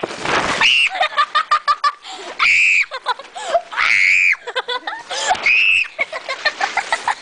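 Several people screaming and laughing. A few short, high-pitched screams stand out, at about 1, 2.5, 4 and 5.5 seconds in, with quick bursts of laughter in between.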